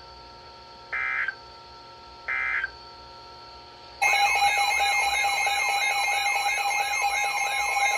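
Emergency Alert System end-of-message data bursts: the tail of one, then two more short, loud electronic screeches about a second and a half apart, over faint steady background tones. About halfway through, a loud warbling alarm tone with a fast repeating sweep starts and keeps going.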